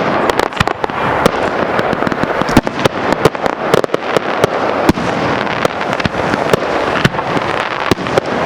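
Fireworks display: a continuous barrage of sharp bangs from bursting shells, several a second, over dense crackling.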